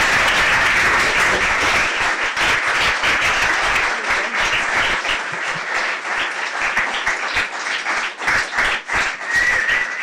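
An audience applauding. The clapping is dense at first and thins after a few seconds into scattered claps near the end.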